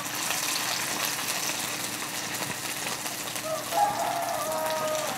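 Mashed boiled potatoes sizzling steadily as they fry in a little hot oil in a small nonstick frying pan.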